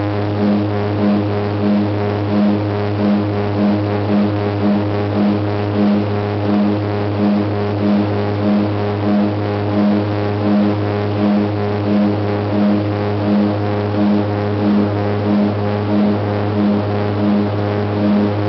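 Cabin drone of a LET L-410 UVP-E twin turboprop's Walter M601E engines and propellers in the climb, a steady throb that swells and fades about one and a half times a second: the beat of the two propellers turning slightly out of step.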